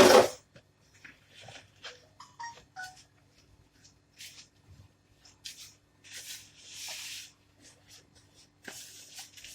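A spoon stirring dry flour, sugar and yeast in a mixing bowl: on-and-off scraping with a few light clinks in the first few seconds, then longer scrapes around the middle and near the end.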